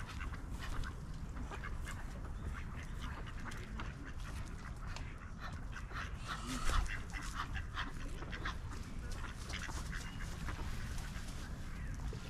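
Ducks quacking, many short irregular calls, over a steady low rumble, with one brief low thump just past the middle.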